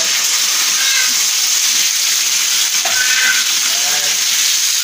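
Masala-coated whole fish sizzling steadily as it fries in hot oil in a shallow pan, a loud continuous hiss.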